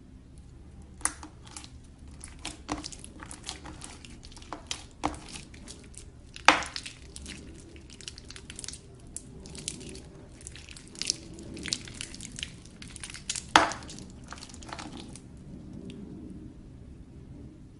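Slime being pressed and stretched by hand, giving a run of sticky crackles and small pops, with two louder pops about six and a half and thirteen and a half seconds in.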